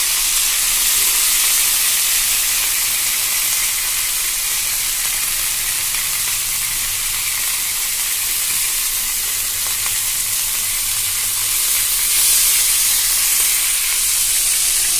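Chicken and vegetable kabab skewers sizzling in hot oil on a flat iron tawa: a steady frying hiss, a little louder about twelve seconds in.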